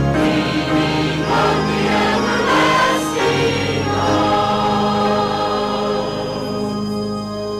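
Church congregation and choir singing a hymn with instrumental accompaniment, ending on long held notes.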